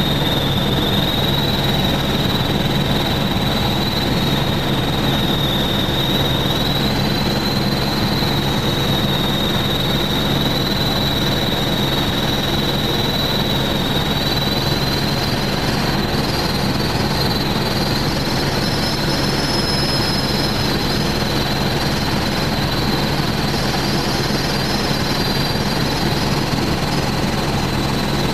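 Helicopter in flight, its engine and rotor running steadily with a constant high whine over the noise.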